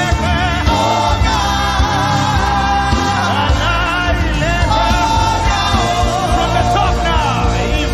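Gospel worship song with singing voices wavering and gliding over a steady band accompaniment with bass.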